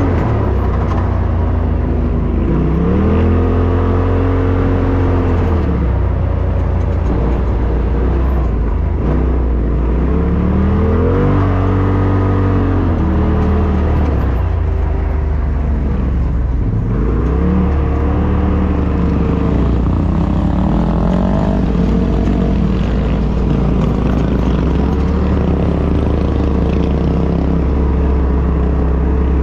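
Polaris RZR Turbo S Velocity's turbocharged twin-cylinder engine heard from the driver's seat, revving up and easing off again several times as it drives on sand, over a steady low drone from the drivetrain.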